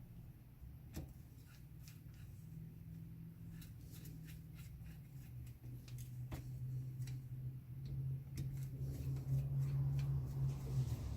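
Scattered light clicks and taps of hand tools and small metal parts being handled on a minibike engine during reassembly, over a low steady hum that grows louder near the end.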